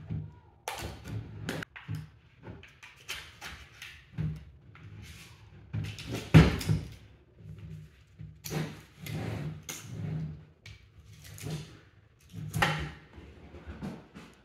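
Plastic frosting tub being handled and opened, its lid and foil seal pulled off, then a spatula scraping frosting out of the tub. Irregular knocks, clicks and scrapes, the loudest a sharp knock about six seconds in.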